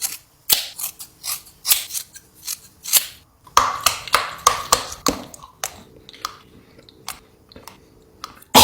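Close-miked chewing and crunching of a crisp snack: irregular sharp crunches, thinning out to occasional clicks in the middle. A sudden loud rush of noise comes right at the end.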